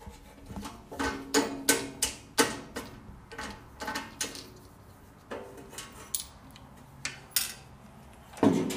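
Bandsaw's lower wheel cover being unlatched and swung open by hand: a series of sharp clicks and knocks as the latch knob and the cover's metal parts are handled.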